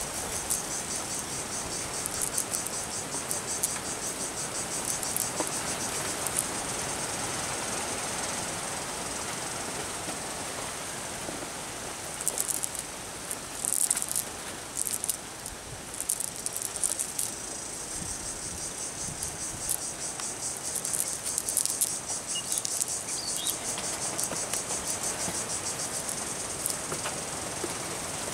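Insects calling in fast, evenly pulsing high-pitched trains over a steady outdoor hiss, louder in patches around the middle.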